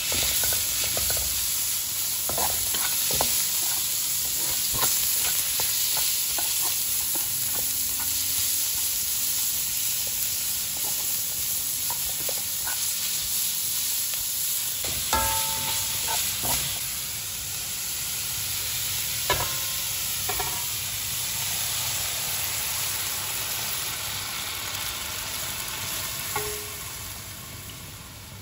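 Minced pork sizzling in a hot stainless-steel wok while a spatula stirs and scrapes it around the pan, with a few short ringing knocks of the spatula on the wok. The sizzle dies down near the end.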